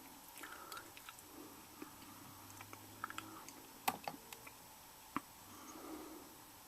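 Faint, irregular clicks and taps on a laptop keyboard, with a sharper click about four seconds in and another about five seconds in.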